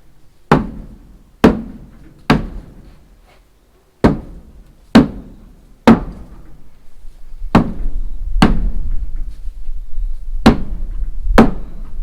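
Heavy blows on timber, about ten sharp thunks in runs of two or three, roughly a second apart, with short pauses between runs. A low rumble builds underneath in the second half.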